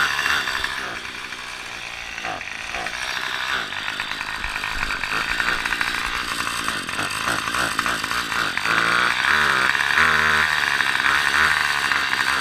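Small petrol engine running steadily with an even, pulsing drone, dipping briefly about a second in and then building up again.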